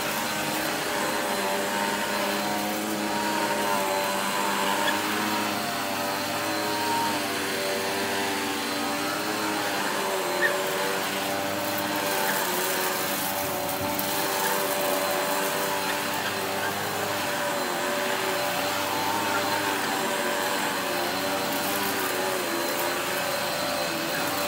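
Shark upright vacuum cleaner running steadily on carpet, its motor hum wavering slightly in pitch, with a couple of sharp clicks.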